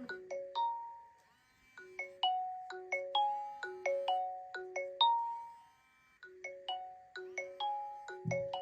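Smartphone ringtone for an incoming call: a quick marimba-like melody of struck notes, repeating in phrases with short pauses between them. A low buzz sounds briefly at the start and returns near the end.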